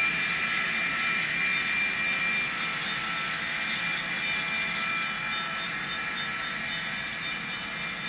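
Model train running on the layout track: a steady whine with a few high tones over wheel noise, slowly fading.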